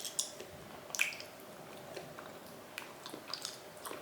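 Wet mouth sounds of someone chewing raw chicken: scattered squishy clicks and smacks, the loudest about a second in.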